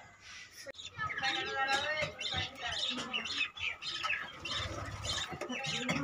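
Budgerigars chirping and warbling in a rapid run of short, high calls that starts about a second in.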